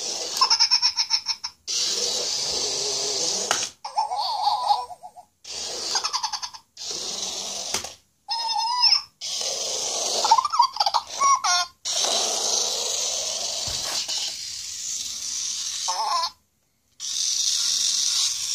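Amazing Zhus Kardini interactive toy mouse playing its electronic giggles and warbling squeaky chatter in short bursts, between stretches of hissing, whirring noise, with abrupt pauses in between.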